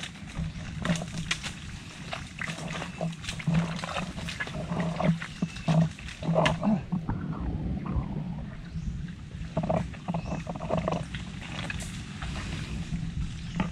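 Thick mud being dug through by hand, squelching and sucking with a low, uneven rumble, broken by many small clicks and knocks.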